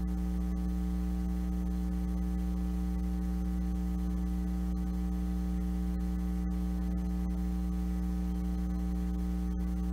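Steady electrical mains hum on the audio line, a constant low buzz with a stack of evenly spaced overtones.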